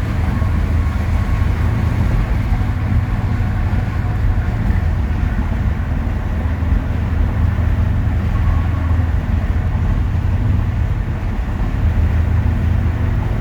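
1966 Ford Thunderbird's V8 cruising at about 70 mph: a steady low engine drone with tyre and road noise.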